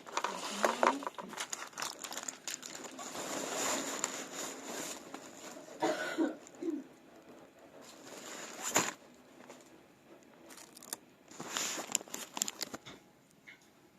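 Rustling and crinkling, like something being handled close to the microphone, with scattered clicks and a sharp click about nine seconds in, dying away near the end.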